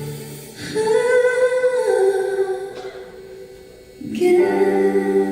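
Slow live concert music of long held notes and chords, with singing. The music fades down in the middle and swells back about four seconds in.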